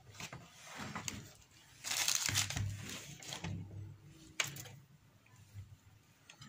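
Crinkling and rustling of the paper-and-foil wrapping around a small circuit board as it is handled and moved, loudest about two to three seconds in, with a sharp click a little after four seconds.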